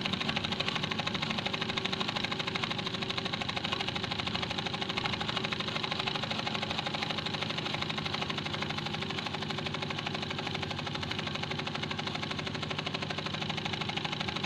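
Small homemade steam engine running fast at a steady speed, with a rapid, even clatter.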